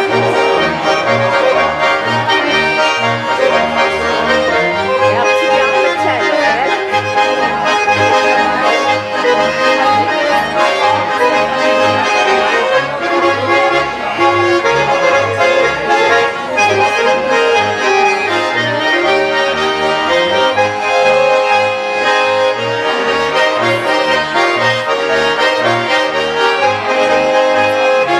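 Swiss folk music played on three Schwyzerörgeli (small diatonic button accordions), with a plucked double bass keeping a steady beat underneath.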